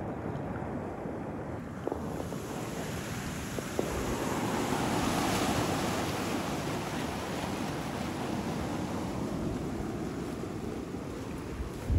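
Ocean surf washing over the shoreline rocks, swelling louder about four seconds in and then easing back, with wind buffeting the microphone.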